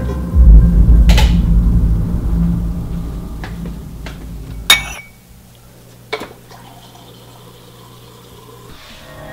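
A low rumbling drone with a few sharp clinks of glass and dishes, then a refrigerator door water dispenser running with a steady hum as it fills a glass.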